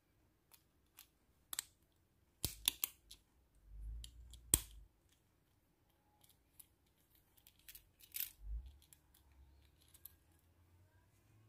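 Small plastic-and-metal lanyard clip and metal ring handled in the fingers: scattered clicks and light rattles, the sharpest about two and a half and four and a half seconds in, with soft low thumps of hands against the table.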